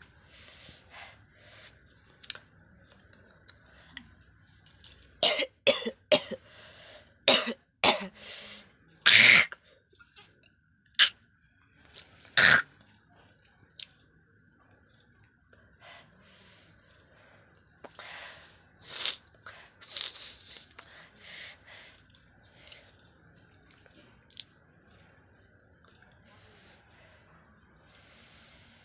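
A person coughing and clearing the throat over and over in short, sudden bursts. The loudest run of coughs comes about five to thirteen seconds in, with softer ones after.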